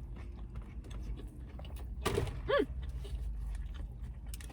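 Close-up eating sounds: chewing with small wet clicks and crackles. About two seconds in comes a short throaty vocal sound that falls in pitch.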